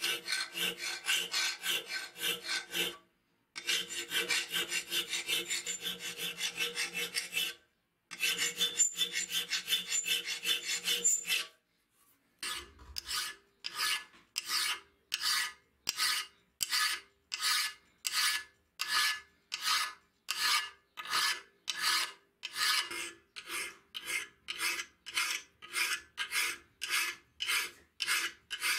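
A flat hand file scraping back and forth across the steel jaws of a pair of pliers held in a vise. At first the strokes are quick and short, about four a second, with a faint metallic ringing under them, broken by three brief pauses. After about twelve seconds they turn into slower, longer strokes, about two a second.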